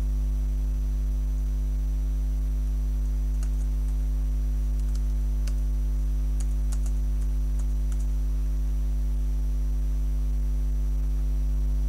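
Faint clicks of computer keyboard keys typing a short command, scattered between about three and eight seconds in. Under them runs a louder steady electrical mains hum with a thin high whine.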